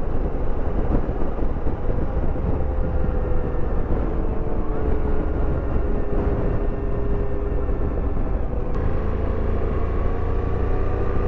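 Motorcycle engine running at road speed under heavy wind and road rush on the microphone. The engine note sinks slightly midway and rises again near the end.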